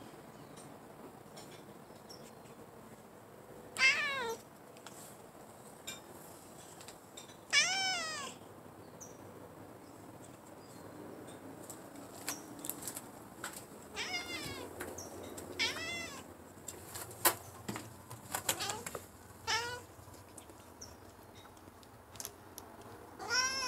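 Orange-and-white long-haired domestic cat meowing about six times, each meow short and falling in pitch, with a few light clicks in between; a hungry cat asking for food.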